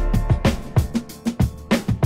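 Background music with a steady drum beat, about four hits a second, over sustained melodic tones.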